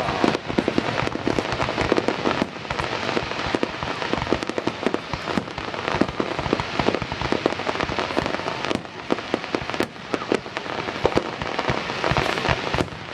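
Fireworks display going off in rapid succession: a dense, continuous crackle of many small pops and bangs, which sounds like it's on fire.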